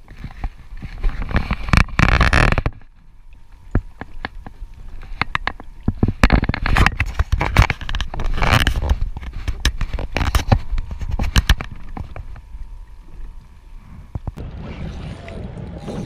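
Wind buffeting a kayak-mounted camera microphone in gusty surges, with choppy water slapping the kayak's hull and scattered knocks and clatters. Near the end it settles into a steadier hiss of wind and water.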